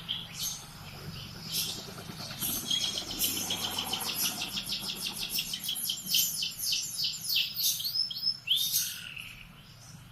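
Domestic canary singing: a few short high calls, then a long fast trill of rapidly repeated notes, ending in a run of quick falling whistled sweeps.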